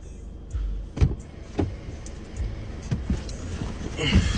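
Knocks and clunks of someone moving about inside a car, over a low rumble, with a burst of rustling near the end.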